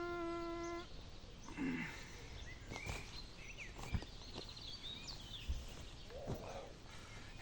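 Faint outdoor ambience with a few short high chirps and scattered light clicks and rustles, opening with a steady tone that stops about a second in.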